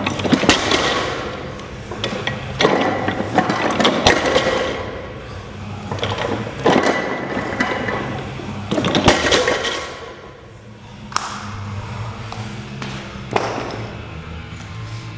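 A 260 kg barbell loaded with Rogue bumper plates being deadlifted for fast reps. The plates hit the floor with a clank and a rattle every two to three seconds, about six times, over a steady low hum.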